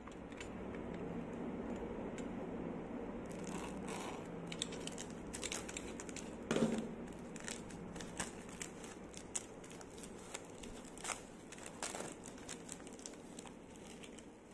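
Clear plastic shrink-wrap being torn and peeled off a phone box, crinkling and crackling in quick irregular clicks, with one louder rip about halfway through.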